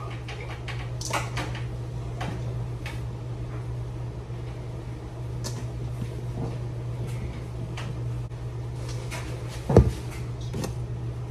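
Strawberries handled and dropped into a stainless steel mixing bowl, giving scattered soft knocks and clinks, then one loud thud near the end as the steel bowl is set down. A steady low hum sits underneath.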